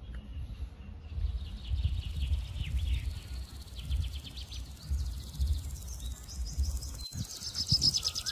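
Birds chirping over a low rumbling background: many quick, downward-sweeping chirps begin about a second in, and a fast run of repeated high chirps comes near the end.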